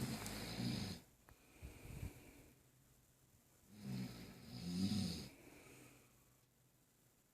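A person snoring in slow, low snores. One snore trails off about a second in and another comes around the middle, with quiet in between.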